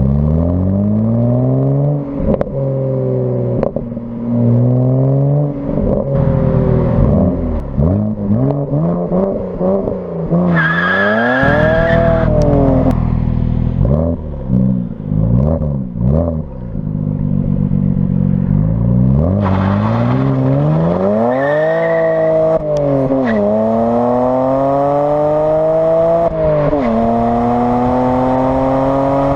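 Stock BMW E92 335i's N54 twin-turbo straight-six, with standard exhaust, revved up and down repeatedly, then pulling under hard acceleration with pitch rising steadily, dropping sharply at a gear change near the end and rising again.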